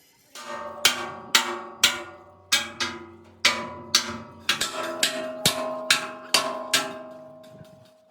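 Steel being struck repeatedly with a hammer: about fourteen sharp strikes at an uneven pace, each leaving a metallic ring that dies away.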